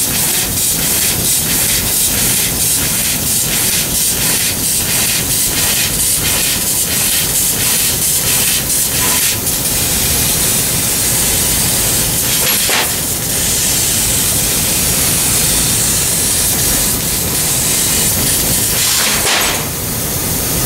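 Amada FOM2 3015 NT CO2 laser cutter working 3/16-inch hot-rolled steel: a loud, steady hiss of the cutting jet. During the first half it pulses two or three times a second as small holes are pierced one after another, then it settles into a continuous hiss as the head cuts a longer contour.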